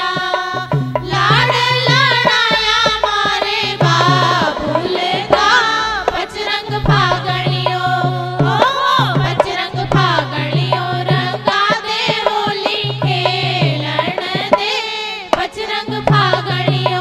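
Women singing a Rajasthani faag (Holi folk song) in chorus, accompanied by a dholak hand drum playing a steady repeating beat.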